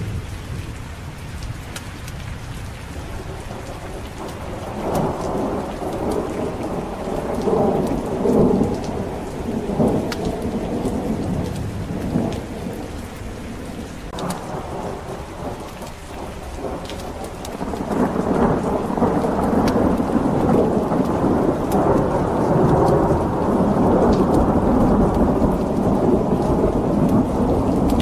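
Steady rain with rolling thunder. Rumbles swell about five and eight seconds in, then a longer, louder rumble builds about two-thirds of the way through and keeps going.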